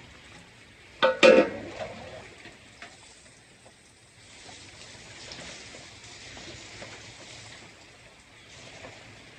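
A short, loud animal call about a second in, followed by a steady hiss of rain falling.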